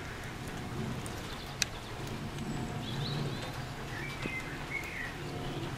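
Outdoor ambience of rain with birds chirping now and then, mostly in the second half, over a steady low rumble; a single sharp tick about a second and a half in.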